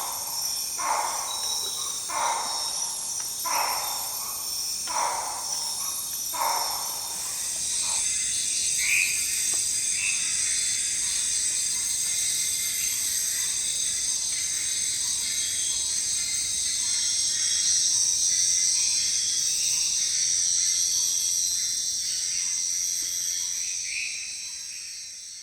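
Forest ambience: a bird calling about five times, roughly once every second and a half, then a steady high-pitched insect chorus that takes over after about seven seconds, with a few short bird chirps; it fades out at the end.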